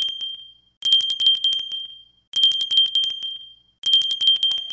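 A bell rung in trills of quick strikes, about eight a second, with a bright ringing tone; a new trill comes about every one and a half seconds and each dies away before the next.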